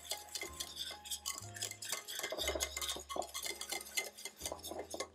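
Wire whisk stirring a nearly finished custard in a stainless steel saucepan, the wires clicking and scraping rapidly against the pan.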